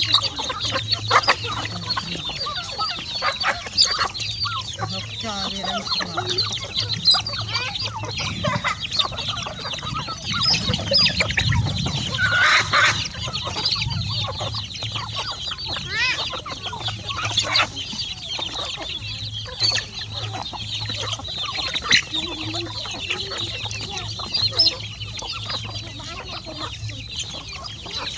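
A flock of chickens, many of them half-grown young birds, clucking and calling over and over while they peck at food.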